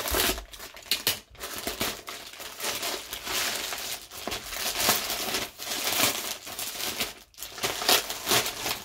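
Plastic poly mailer being slit open and pulled apart, with crinkling and rustling of plastic throughout and sharp crackles. Near the end a foil bubble mailer is drawn out of it.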